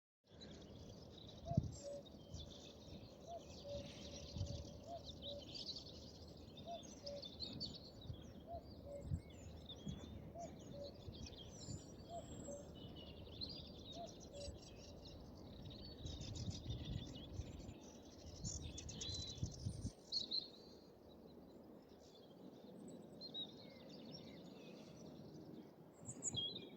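Small birds singing and chirping in a busy, overlapping mix of short calls and trills, with a faint low note repeated at even spacing for about the first half, over low uneven rumbles.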